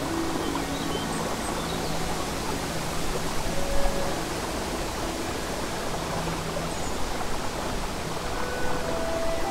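Babbling brook with soft background music of slow held low notes, and a few faint high bird chirps.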